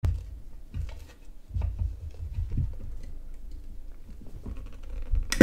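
Water-pump pliers wrapped in a cloth working a tight plastic knob on a microphone: low handling bumps and small clicks, then a sharp snap near the end as the knob pops off its potentiometer shaft.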